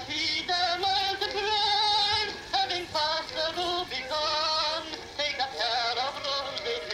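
Restored opera phonograph playing a record of a singer through its horn: a wavering voice with strong vibrato, thin and tinny with little bass.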